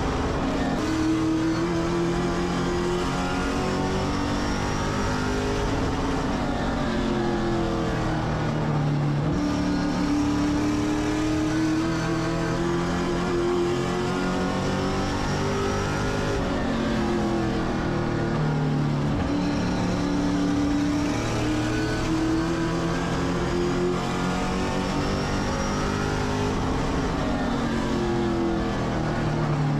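Race car engine lapping a short oval under power. Its pitch climbs slowly along each straight, falls away off the throttle into the turns, then picks up again, repeating about every ten seconds.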